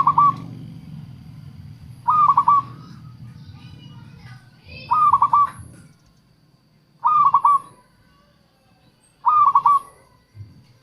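Zebra dove (perkutut) cooing: five short bursts of quick, rolling notes, about two seconds apart.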